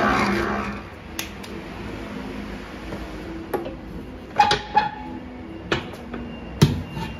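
Background music fading out in the first second, then about half a dozen sharp metallic clanks and knocks from the stainless-steel bowl and bowl mount of a dough mixer being handled, one followed by a short ring.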